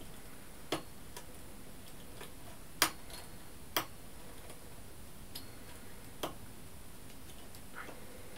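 Irregular sharp little clicks and ticks of a metal double-eyed bodkin being worked through open stitches on a knitting machine's steel needles, binding off. The loudest click comes about three seconds in.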